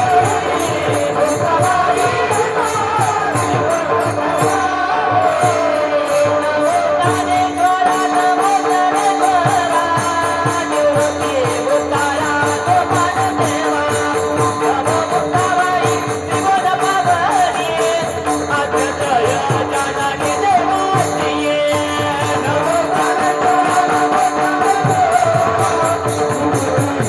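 Devotional kirtan music: a steady held drone under a wavering melody line, with continuous jingling hand percussion.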